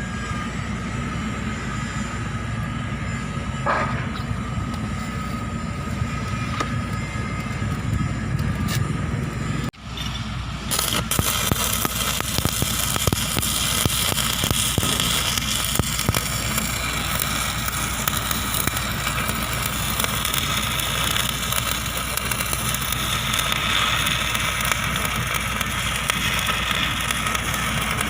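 A low steady hum, then, after a brief cut about ten seconds in, an electric welding arc crackling and sizzling steadily as a weld is laid.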